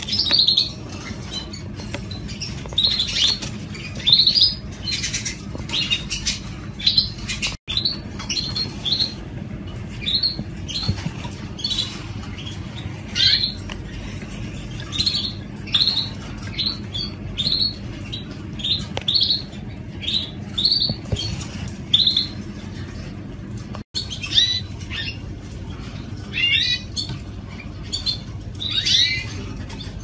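Parisian frill canaries chirping and calling in many short, separate notes, some sliding down in pitch, over a steady low background hum.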